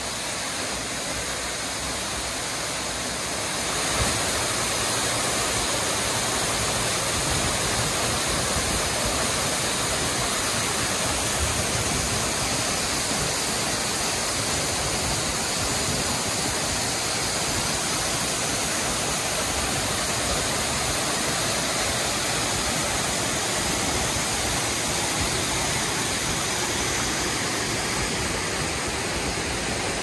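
Waterfall pouring over rock ledges into a rocky creek: a steady rush of falling water, a little louder from about four seconds in.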